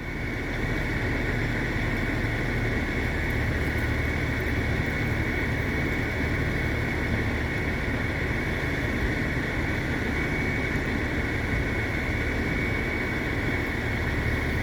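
A radio channel keyed open with no one talking, carrying steady engine-like vehicle noise and hiss; it starts suddenly and cuts off suddenly about fourteen seconds later.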